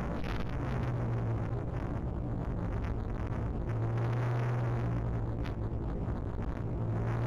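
A motor humming steadily, its pitch stepping up and down a little a few times, over a rumble of wind on the microphone.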